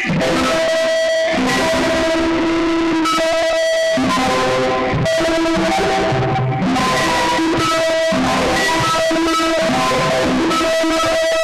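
Distorted, guitar-like electronic tones from a home-built gesture-controlled MIDI sound suit. The pitch changes every second or so with short breaks between the notes as the wearer moves his hands.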